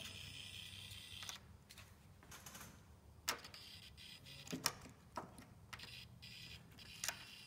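Faint scattered clicks and taps from a model train locomotive being gripped and handled on the layout track, a few sharp ticks a second or so apart over a low steady hum.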